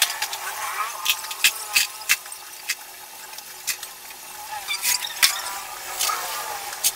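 Scattered light clicks and knocks of things being handled at a counter, a few a second at first and sparser later, over a faint steady hum.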